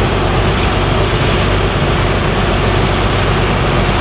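Diesel engine of a sport-class pulling tractor running loudly and steadily, with no revving.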